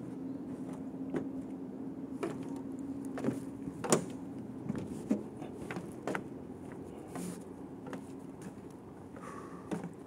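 Footsteps on a wooden plank boardwalk, irregular knocks and creaks about once a second, the sharpest about four seconds in, over a steady low hum.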